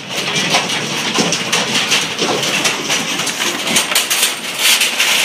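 Sheep hooves clattering and trampling on a loading ramp and truck deck as a mob of sheep runs aboard, a dense, continuous patter of small knocks.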